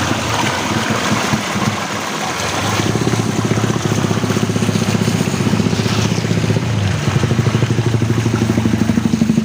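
Heavy rain hissing steadily. From about three seconds in, a small engine idles nearby with a fast, even pulse, getting louder about seven seconds in.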